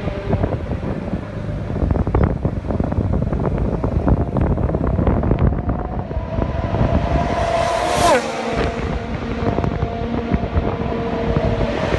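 Formula 1 car engines running at high pitch, carried around the street circuit. One car passes close about eight seconds in, its note falling sharply as it goes by.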